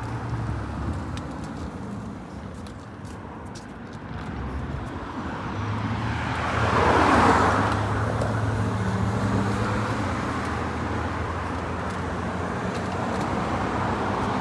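Road vehicles passing on a street: one swells up and goes by about seven seconds in, leaving a steady low engine hum, and another approaches near the end.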